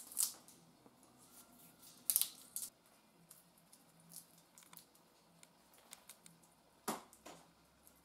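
An African grey parrot cracking and tearing at a peanut shell with its beak: scattered sharp crackling snaps, the loudest just after the start, at about two seconds, and near seven seconds.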